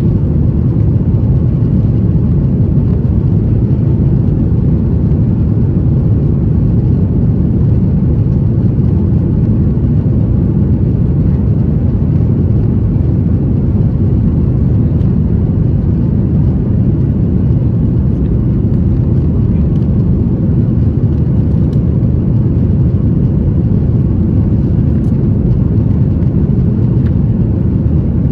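Cabin noise of a Boeing 737-800 climbing out after takeoff, heard from a window seat behind the wing: its CFM56-7B turbofan engines and the airflow make a steady, loud, low-pitched rumble.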